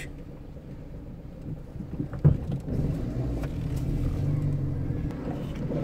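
Heavy truck's diesel engine running with a steady low hum that grows louder from about halfway through. There is a single sharp knock about two seconds in.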